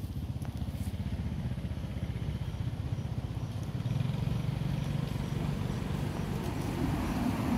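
A motor vehicle engine running off-screen, a fast low pulsing that gets louder from about four seconds in.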